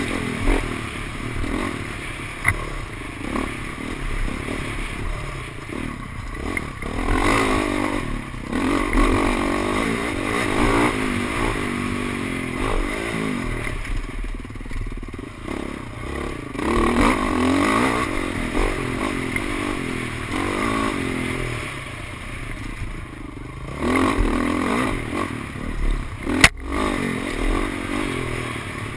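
Dirt bike engine heard from the rider's helmet, revving up and down again and again as the throttle opens and closes on the trail, with a single sharp crack near the end.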